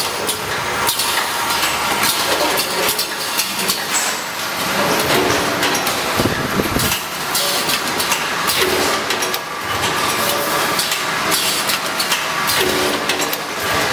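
Automatic vacuum brick-pack rice packaging machine running: a steady mechanical din with frequent sharp clacks from its conveyor and air-driven parts.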